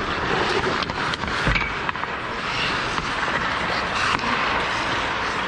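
Ice hockey play close to the net: skates scraping and carving on the ice, with sharp clacks of sticks and a heavy thump about a second and a half in.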